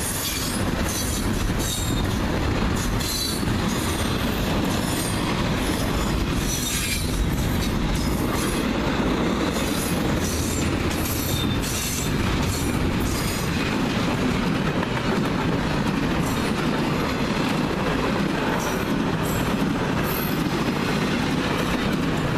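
Train cars rolling steadily past close by: a continuous rumble of steel wheels on rail with clickety-clack over the joints and repeated short high-pitched wheel squeals.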